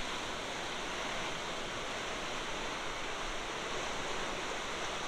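Rushing floodwater of a swollen river running high and brown after heavy rain, churning through rapids and standing waves. A steady, even rush with no breaks.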